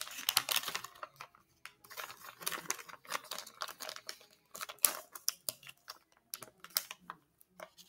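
Plastic soft-bait bag crinkling and rustling as it is handled and pulled open at the top. The crackle comes in dense stretches during the first half and thins to scattered sharp clicks toward the end.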